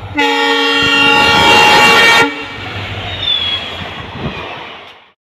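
Indian Railways train horn blowing one long blast of about two seconds, then the rumble and clatter of the train's coaches running past close by, which cuts off abruptly near the end.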